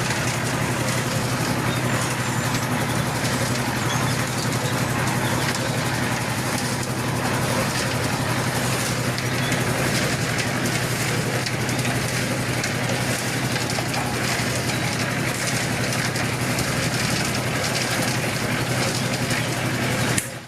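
A machine running steadily: an even low hum under a broad noisy haze, cut off abruptly at the end.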